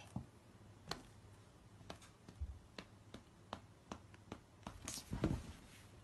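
Faint, irregular clicks and taps of two cats' paws and claws on a leather chair as they swat at each other, with a louder brief scuffle about five seconds in.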